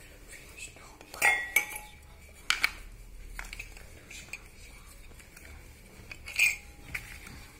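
Small hard objects knocking and clinking as a wooden gift stand with a glass hourglass is handled on a cluttered table. There are a few sharp knocks about a second in, around two and a half seconds in and once near the end, some leaving a brief ring.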